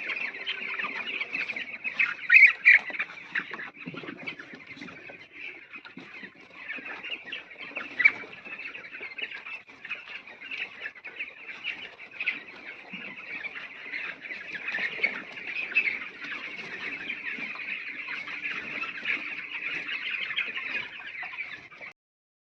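A flock of young chicks peeping together in a dense, continuous chorus of high calls, with a few louder calls about two seconds in and again near eight seconds. The sound cuts off abruptly near the end.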